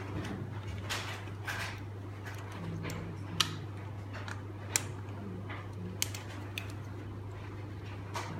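Hard plastic parts of Super Minipla snap-together robot model kits clicking as they are folded and repositioned by hand: a handful of scattered sharp clicks, the sharpest about three and a half seconds in, over a steady low hum.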